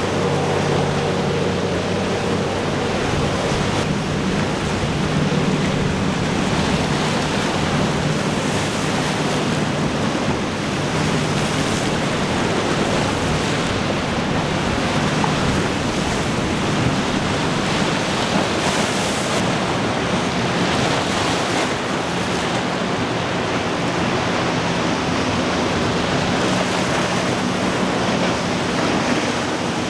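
Steady rush of breaking waves and surf with wind on the microphone, and the low, even hum of boat engines underneath as boats run through rough inlet water.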